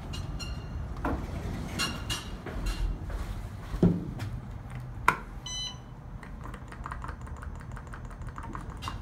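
Otis Series 6 hydraulic elevator's hall and car buttons being pressed: scattered clicks and knocks, a short electronic beep a little past halfway, then a fast, even ticking of about five a second near the end.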